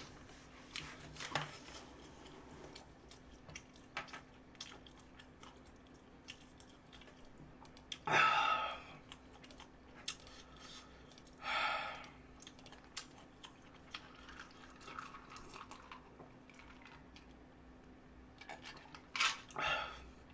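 Close-up eating sounds: soft chewing of fried dumplings with scattered small clicks and taps. There are two short, louder noises about eight and twelve seconds in.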